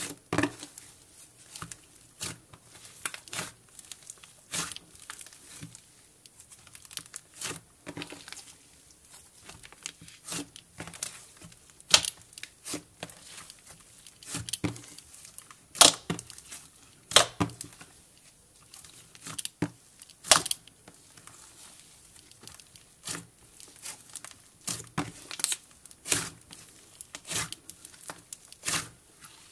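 Hands kneading and stretching a mixed cloud and jelly slime, giving irregular sticky pops, crackles and tearing sounds. A few of the pops are much louder than the rest.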